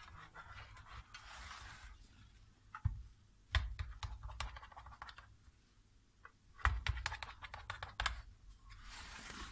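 Knife cutting a tray of baked basbousa (semolina cake): scraping through the crust and knocking against the bottom of the metal baking tray in a few sharp clicks, with scratchy scraping about a second in and again near the end.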